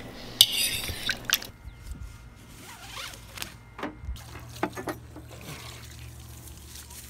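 A fork scraping and clinking in a bowl of cubed fish sitting in citrus marinade. After a sudden change, a few sharp clicks and knocks follow, and a low steady hum sets in about four seconds in.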